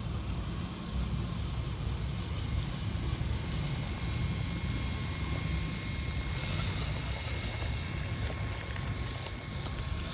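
Radio-controlled rock crawler on an Axial SCX10 chassis driving through grass and onto gravel, its electric motor giving a faint steady whine over a low rumble, with a few clicks.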